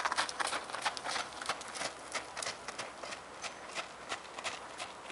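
Hoofbeats of a horse trotting and cantering on the lunge over a packed dirt and sand arena: a quick, uneven run of short clicks and thuds, several a second.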